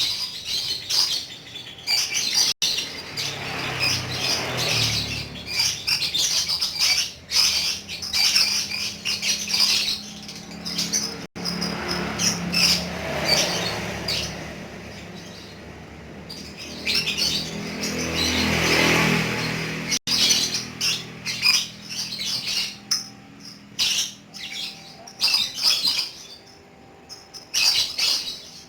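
Lovebird chattering in long, rapid, high trills, the continuous 'ngekek' song kept birds are prized for. A low hum swells and fades underneath about three times.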